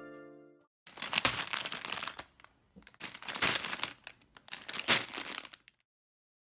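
Thin plastic Lego parts bag crinkling and crackling as it is handled, torn open and emptied, with small plastic bricks spilling out. It comes in bursts for about five seconds and then cuts off suddenly.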